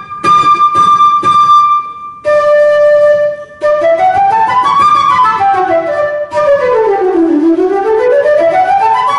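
Concert flute played with martellato articulation: a string of hard-tongued, accented notes on one pitch, each held to its full length without dying away. Then a held lower note, and two fast stepwise runs, one climbing and falling back and one dipping low and climbing again.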